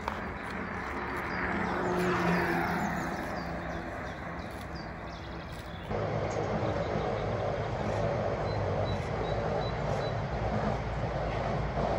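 Road traffic: a motor vehicle passes, swelling to its loudest about two seconds in and then fading. About halfway through, the sound cuts abruptly to a steady rumble of an electric train running along the valley.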